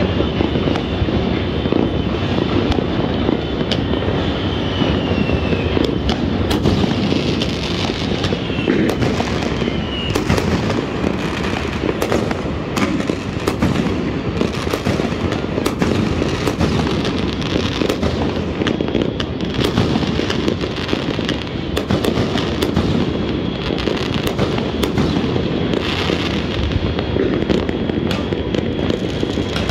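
Fireworks and firecrackers going off all over a city at once: a dense, continuous crackle of many pops and bangs at once. A few falling whistles sound in the first ten seconds or so.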